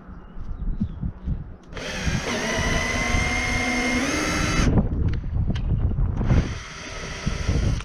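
Power drill with a quarter-inch bit boring a hole through a kayak's plastic deck. There is one run of about three seconds that spins up and holds a steady whine, then a second, shorter run near the end.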